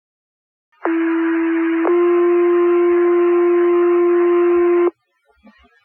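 Two-tone sequential fire-department pager alert over a radio: a first tone of about one second, then a slightly higher tone held about three seconds, which cuts off abruptly. Radio hiss sits under both tones, and the tones set off the volunteer firefighters' pagers ahead of the voice dispatch.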